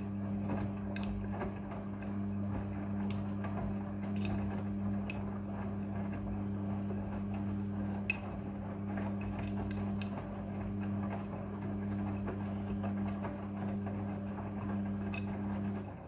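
Front-loading washing machine drum turning through the wash: a steady motor hum under the sloshing and tumbling of wet clothes, with sharp clicks now and then. The hum stops near the end as the drum comes to rest.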